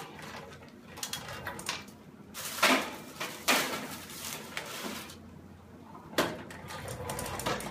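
A few clunks and scrapes as a metal baking pan is slid into a countertop toaster oven and the oven door is shut, with paper rustling in between.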